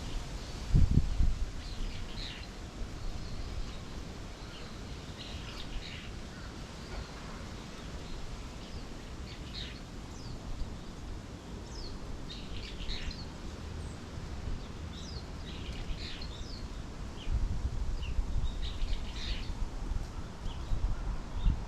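Small birds chirping, short high calls repeating throughout over faint outdoor background noise. A low thump about a second in, and a louder low rumble near the end.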